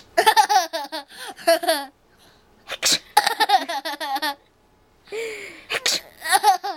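A sneeze followed each time by a child's staged burst of laughter, a quick run of 'ha-ha-ha'. Sneezes come about three seconds in and again near six seconds, and each one is answered by a laugh.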